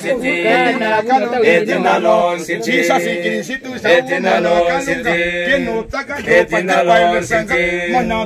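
A group of men and women singing together without instruments, several voices in harmony.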